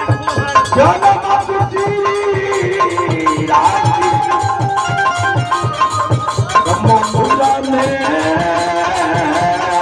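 Live harikirtan devotional folk music: a man singing through a microphone over a dholak drum beating in a quick steady rhythm, with jingling hand percussion and held melodic tones.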